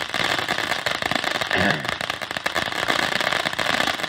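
Consumer fireworks going off without a break: dense, rapid crackling and popping over a steady hiss.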